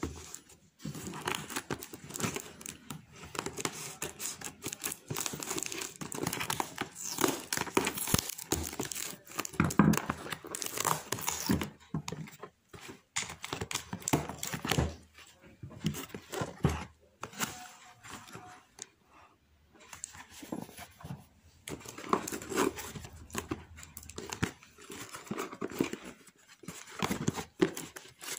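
Clear plastic packaging crinkling and tearing in irregular bursts as a boxed item is unwrapped by hand, with short pauses in the handling.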